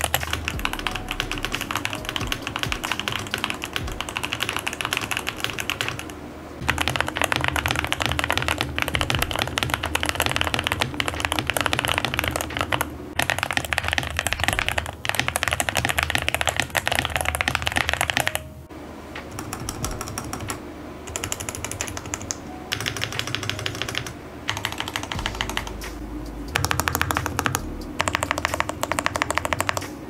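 Fantech Maxfit81 mechanical keyboard with lubed Moondrop Lunar Light linear switches and poron plate foam, typed on fast: a dense run of key clacks with a few brief pauses. The typing is softer for several seconds in the second half.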